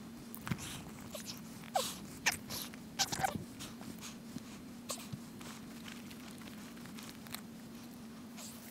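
Tarp fabric and a stuff sack being handled: irregular rustles and crinkly crackles, busiest in the first three seconds or so, then a few scattered light ticks, over a faint steady low hum.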